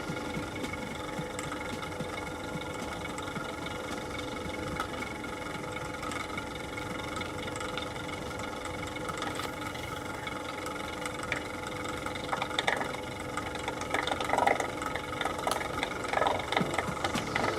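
Dalton universal mixer running: a steady motor and gear hum, with irregular rattling coming in and growing louder about two-thirds of the way through.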